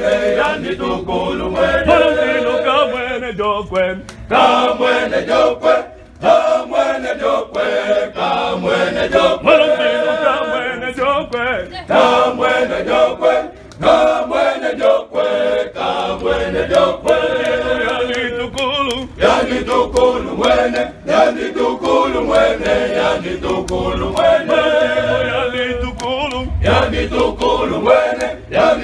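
Choir of young men singing a hymn a cappella, many voices together in repeated phrases with short breaks between them.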